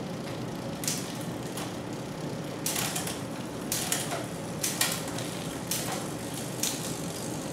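Bicycle drivetrain turning in a repair stand as the crank is spun by hand: the chain runs with a steady whir over the 9-speed cassette, with sharp clicks about once a second as the gears are shifted through.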